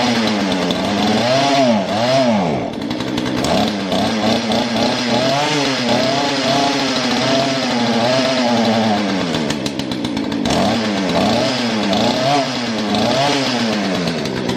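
Small two-stroke chainsaw engine of about 40 cc being test-run after a carburetor cleaning, the throttle blipped so that its pitch rises and falls about once a second, with one deeper drop about two seconds in.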